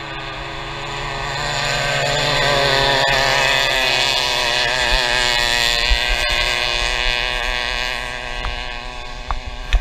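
Racing boat's engine at high revs speeding past: the engine note and water noise swell over the first couple of seconds, stay loud through the middle and fade near the end. Wind buffets the microphone with low thumps.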